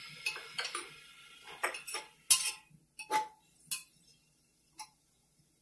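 Spatula knocking and scraping against an aluminium pressure cooker while stirring onions and tomatoes: about ten irregular clinks, the loudest a little past two seconds in and one ringing briefly around three seconds. A faint sizzle of the frying fades out in the first second.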